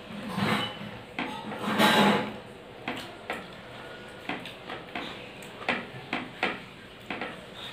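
A person eating rice by hand close to the microphone: a series of short clicks and smacks from chewing and from fingers working the food on the plate. Two louder, noisier sounds come in the first two seconds, the louder one about two seconds in.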